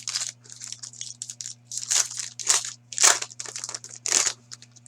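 Trading card pack wrappers and cards being handled: a run of short crinkling rustles, with louder ones about two, two and a half, three and four seconds in.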